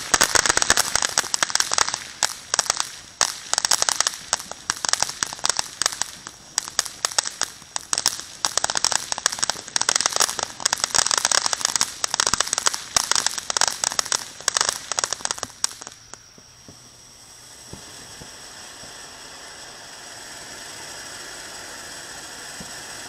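Ground fountain fireworks spraying, with dense fast crackling for most of the time. About sixteen seconds in, the crackle stops and a fountain carries on with a quieter, steady hiss.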